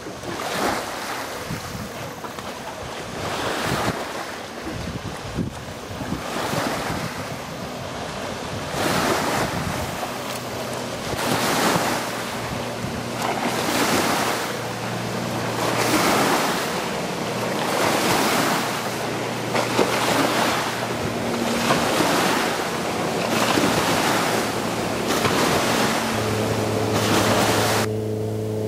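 Water washing in regular surges about once a second, with wind on the microphone. From about ten seconds in, the low steady hum of a motorboat's engine runs underneath. About a second before the end the sound switches abruptly to a steady engine drone heard from aboard the boat.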